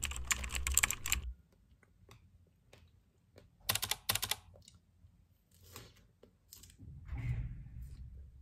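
Typing on a keyboard in quick bursts: a dense run of clicks in the first second, another short run about four seconds in, then a few scattered taps and a soft rustle near the end.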